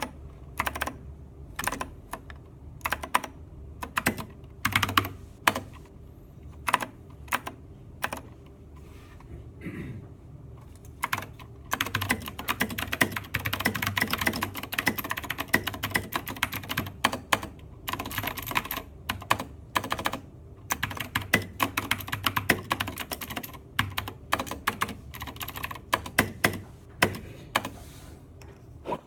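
Typing on a Filco Majestouch 2 mechanical keyboard with Cherry MX Blue switches and double-shot keycaps, each keystroke a sharp click. Single keystrokes come slowly at first, then about twelve seconds in the typing turns fast and continuous for several seconds, before going on in shorter bursts.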